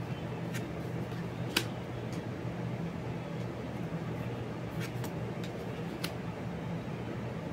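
Oracle cards being handled on a wooden table: several short clicks and taps as cards are slid off the deck and set down, the sharpest about a second and a half in. A steady low hum runs underneath.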